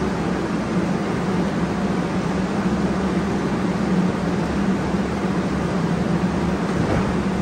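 Steady hum and hiss of a TriMet MAX light-rail car standing at the platform, its onboard equipment running while it waits to depart.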